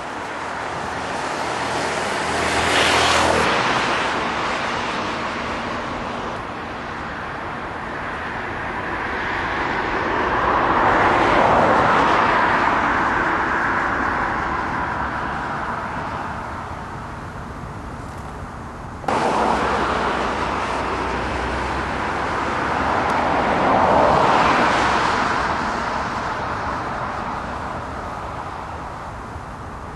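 Jet aircraft passing low overhead near Heathrow: a long rush of engine noise that swells and fades over several seconds, heard twice, with abrupt cuts between passes.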